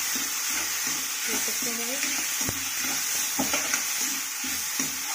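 A spatula stirring and scraping a frying masala of peanuts and green peas in a steel kadhai over a steady sizzle, with a few light clicks of the spatula against the pan.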